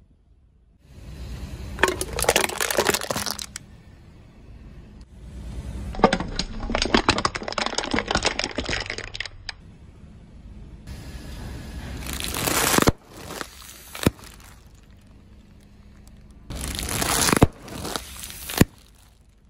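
A car tyre rolling over small objects on asphalt, crushing plastic toys and packets. There are four separate stretches of crackling and crunching, with several sharp cracks in the second half.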